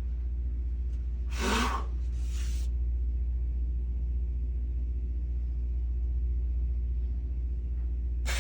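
A steady low hum, with two short hissing noises a little over a second in and again about two seconds in.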